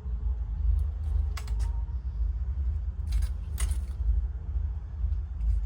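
A few short metallic clinks and knocks, two close together about a second and a half in and two more a little past three seconds, over a steady low rumble.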